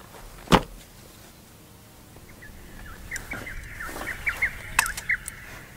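One sharp clack from a folding camp chair's aluminium pole frame being fitted together, followed from about two seconds in by a run of short, quick chirps.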